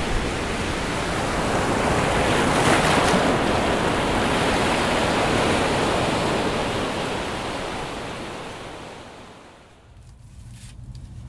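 Pacific surf breaking and washing over shoreline rocks: a steady rush of waves that swells about two to three seconds in, then fades away over the last few seconds, leaving a faint low hum and a few light clicks.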